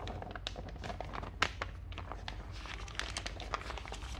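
Paper pages of an instruction booklet rustling and crinkling as they are turned and folded by hand, a run of irregular crackles.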